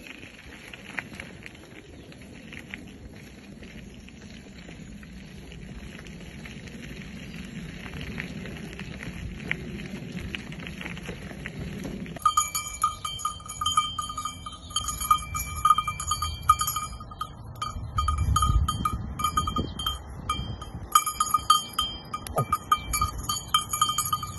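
Faint outdoor background noise for about the first half. Then, from about halfway, a cowbell on a young cow's collar clangs irregularly as the animal walks, and this is the loudest sound.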